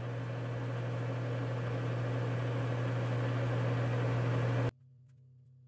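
Bridgeport vertical milling machine running with its spindle turning a drill bit clear of the work: a steady motor hum with a hiss over it, growing slightly louder, then stopping abruptly about four and a half seconds in, leaving a faint hum.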